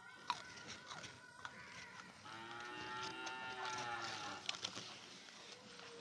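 A cow mooing once: a single long call of about two seconds in the middle, its pitch rising slightly and then falling.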